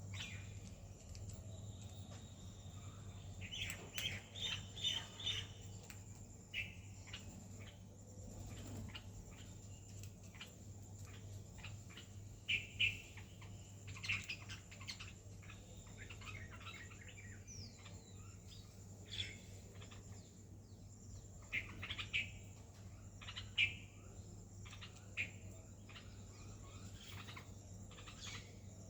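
Parrot giving short chirping calls in scattered clusters, with the loudest calls about halfway through and again near the end, over a steady low hum.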